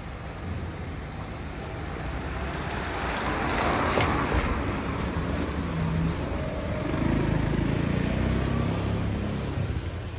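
Road traffic noise with a steady low hum, swelling as a vehicle passes about four seconds in.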